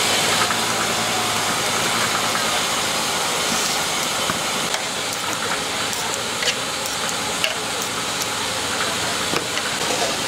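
Steady hissing din of a busy street market, with a few faint clicks and knocks scattered through it.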